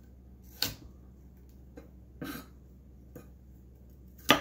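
Chef's knife chopping baby carrots on a wooden cutting board: a few separate knocks of the blade through the carrot onto the board, the loudest near the end.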